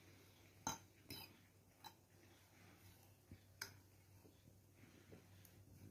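Spoon stirring spiced, grated meat on a ceramic plate, clinking faintly against the dish a few times.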